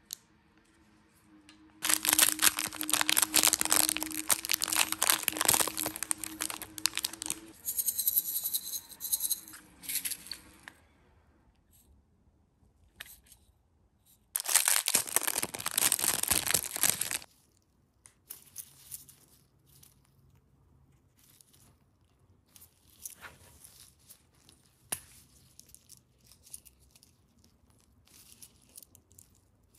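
Clear plastic disposable gloves crinkling loudly in two long stretches as the hands grip and turn small jars of gold nail-art pieces. After that come faint small clicks and taps as pieces are handled.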